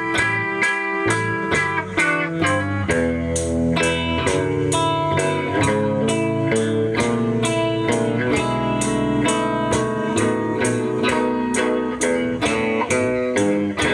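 Live blues guitar music: guitars playing a steady rhythmic vamp with ringing, sustained notes over a regular beat, no vocals.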